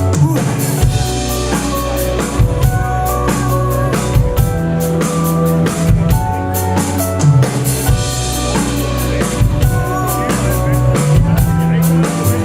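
A rock band playing live: drum kit keeping a steady beat under electric guitar and bass, an instrumental intro before the vocals come in.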